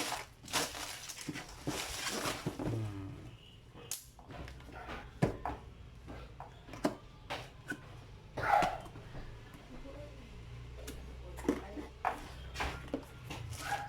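Packaging being unwrapped and handled: plastic wrap rustling in the first few seconds, then scattered knocks and clicks of the box and its contents. One short, louder call about eight seconds in, and a low steady hum through the second half.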